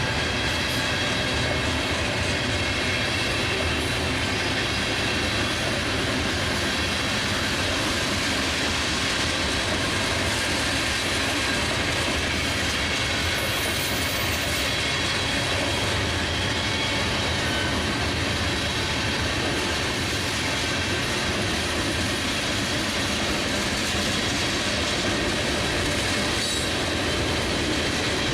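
Freight train cars rolling slowly past: a steady rumble and rattle of wheels on rail, with a faint high squeal from the wheels.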